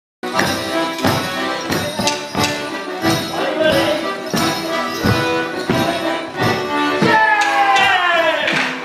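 Live folk music for a Morris dance, played at a lively tempo with a steady beat of sharp strikes about three a second. About seven seconds in, a long note slides downward in pitch for over a second.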